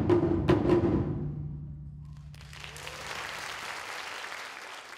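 Japanese taiko drums, including large barrel drums on stands, struck in a few last hits in the first second, then the big drums' low ring fades out. About two seconds in, the audience starts applauding.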